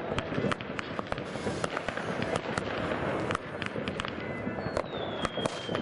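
New Year's Eve fireworks going off in quick succession: many sharp bangs and crackles one after another, with a slowly falling whistle starting near the end.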